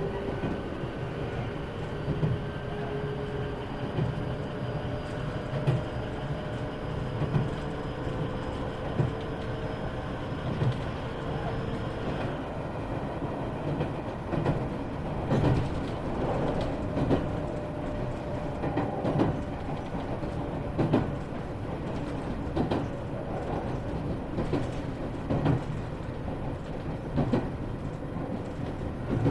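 Iyotetsu 3000 series electric train running, heard from inside a motor car. A traction-motor whine rises slowly as it accelerates and stops about twelve seconds in as power is shut off. It then coasts, its wheels knocking over rail joints every second or two.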